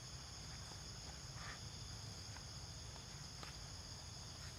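Steady high-pitched drone of insects chirring in the forest, with a low steady rumble underneath.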